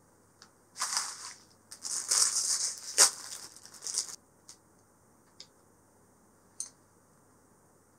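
Thin plastic outer bag of a Kewpie mayonnaise bottle crinkling and rustling for about three seconds as the bottle is pulled out of it, with a sharp crackle about three seconds in. A few small clicks follow.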